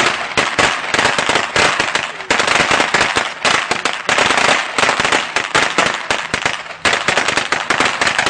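A long string of firecrackers going off in a rapid, continuous crackle of bangs, with brief lulls before it picks up again.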